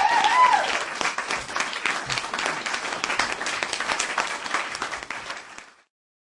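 Crowd applause with a brief cheer at the start, a dense patter of clapping that fades out about five and a half seconds in.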